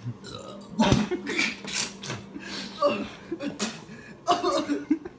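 A young man gagging and coughing over a bin after eating banana and Sprite, with laughter mixed in: a series of short, harsh bursts about a second apart.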